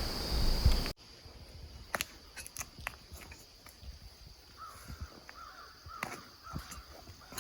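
Crows cawing in a short run of about five calls, with scattered light clicks and ticks around them. Wind noise on the microphone fills the first second.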